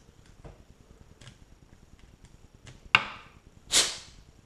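Light clicks of a USB charging cable being handled, a sharp click about three seconds in, then a short rush of blown air, a quick blow-out to clear dirt from the Garmin's charging port.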